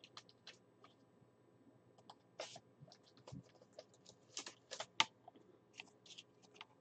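Faint handling of a trading card: a scatter of small clicks, taps and short scratchy rubs, sparse at first and busier from about two seconds in.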